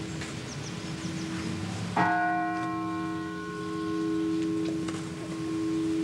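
Church bell struck once about two seconds in, its ring fading over the next couple of seconds, over a steady low hum.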